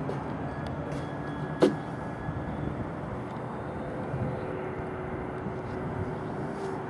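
Steady rushing wind and the whir of a small vertical-axis wind turbine spinning, its foam-and-aluminium blades sweeping past close by. There is one sharp click about a second and a half in.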